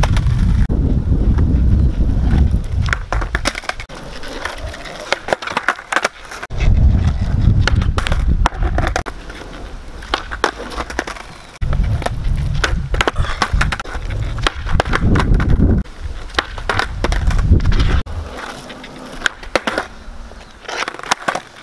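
Skateboard wheels rolling on rough asphalt in three stretches, with sharp clacks of the board being popped and slapping the ground during kickflip attempts.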